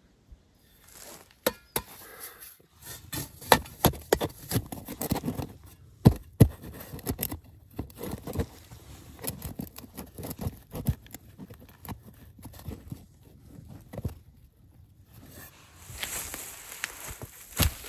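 Rusty steel pipe being worked by a gloved hand into a channel dug in soil: irregular scrapes and sharp knocks of metal against earth, with loose dirt crumbling.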